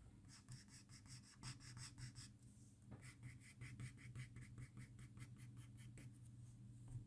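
Faint graphite pencil strokes on drawing paper, short quick scratches several a second, in two runs with a brief pause about halfway.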